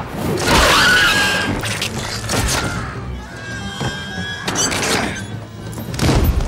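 Action-film fight soundtrack: music under a string of crashes, smashes and thuds. The loudest crash comes about half a second in, with another heavy hit near the end.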